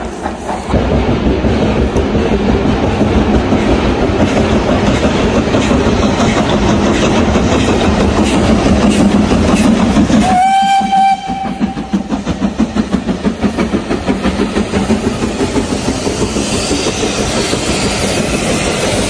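Steam train passing close by: BR Standard Class 4 tank locomotive 80136 hauling coaches with a rapid rhythmic beat and the rumble of wheels on rails. About ten seconds in there is a short steam whistle blast.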